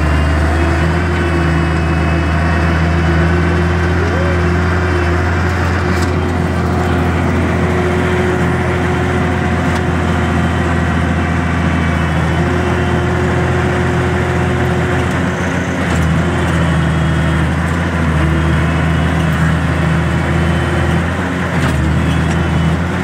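Tractor engine with a cut-down exhaust running steadily and loudly at an even speed.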